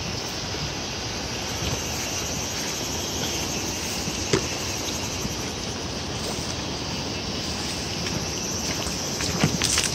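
Steady outdoor noise with an insect chorus hissing in the background, a single click about four seconds in, and a few knocks of footsteps or phone handling near the end.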